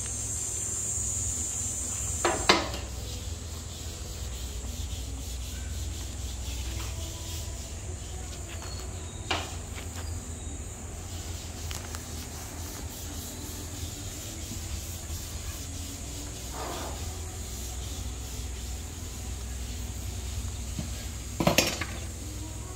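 Scattered sharp knocks from construction work, four in about twenty seconds, over a steady high hiss and a low rumble.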